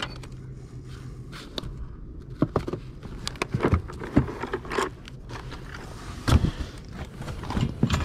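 Hands rummaging through a case of costume jewelry and small trinkets: scattered clicks, rattles and scrapes, with a few louder knocks, the loudest a little past six seconds in.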